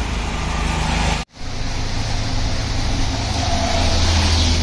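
Road traffic on a wet highway: a steady rush of tyres and engines with a low hum that grows stronger in the second half. The sound drops out for a moment about a second in.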